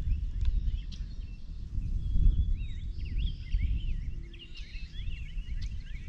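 Uneven low rumble of wind buffeting the microphone, with songbirds chirping behind it in a quick run of short calls from about two and a half to five and a half seconds in.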